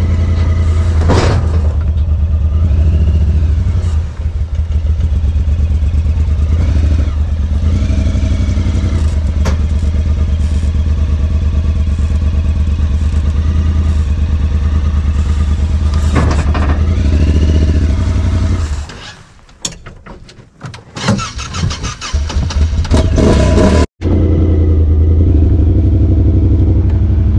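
Honda Talon 1000's parallel-twin engine running cold at a steady idle. Around 19 s it drops out, and it picks up again a couple of seconds later. The machine is struggling in the cold.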